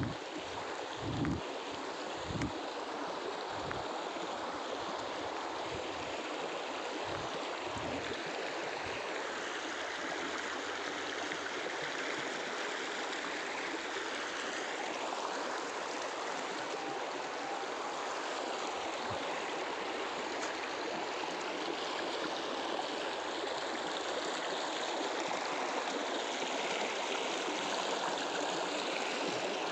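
Shallow river water rushing steadily over stones, a continuous even rush. A few low thumps come in the first several seconds.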